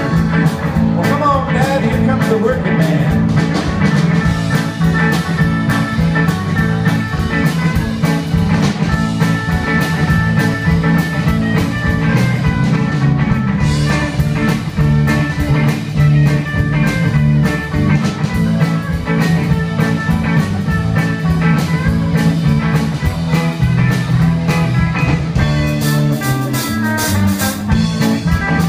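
Live band playing electric guitars and drums with a steady beat.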